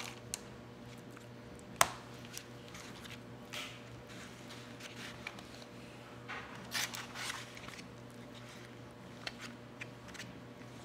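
Soft rustling of parchment paper and a paper plate as raw fish fillets are handled and laid onto a lined baking sheet, with one sharp click just before two seconds in, over a steady low hum.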